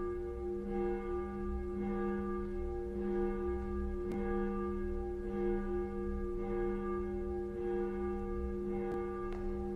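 A church bell, the papklok, swinging and striking at a steady pace of about one stroke a second. Its ringing hum carries on between the strokes.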